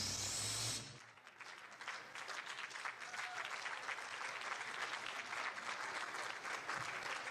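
Electronic dance music ends about a second in with a rising sweep and cuts off. An audience then applauds steadily.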